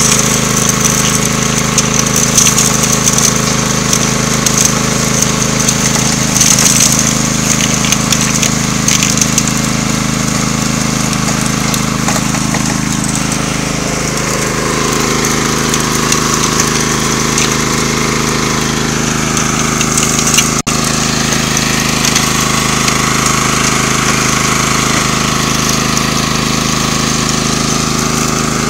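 Small gas engine of a suction gold dredge's pump running steadily, with irregular clinks and rattles from gravel moving through the dredge, busiest in the first half. The sound breaks off for a moment about two-thirds of the way through.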